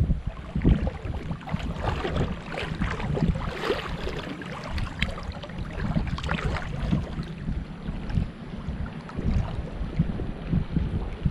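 Wind buffeting the microphone over uneven water splashing and sloshing.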